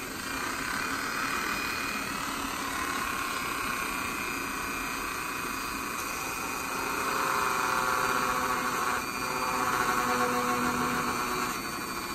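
Dremel rotary tool running at high speed with a #111 or #113 cutter bit, cutting into the base of a tooth on a dried sawfish rostrum. A steady whir that grows louder for a few seconds past the middle.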